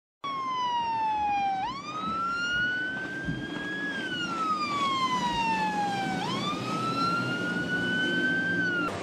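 A patrol boat's electronic siren sounding a slow wail. Its pitch sinks, swoops up quickly, climbs a little more, then sinks slowly again, twice over, with a low rumble underneath. It starts abruptly just after the start and cuts off near the end.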